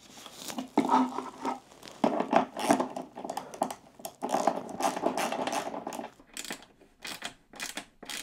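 Bolt being tightened with a socket ratchet and a spanner: metal tools clinking and scraping against the bolt, then a run of sharp ratchet clicks, about three a second, near the end.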